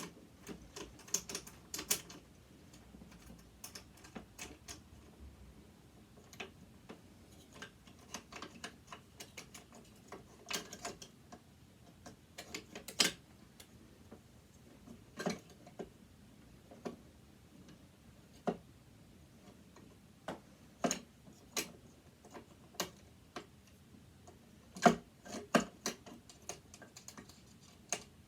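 Irregular metallic clicks and taps of small hand tools working against the metal parts of a sewing machine being dismantled, with a few louder knocks among them.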